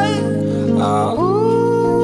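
Background song: a singing voice over instrumental backing, with one long held note starting a little over a second in.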